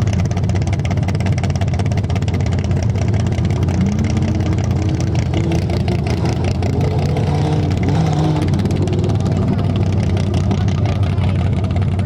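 Off-road competition truck engine running loud and steady, with a deep drone, and its pitch swings up and down a little near the middle.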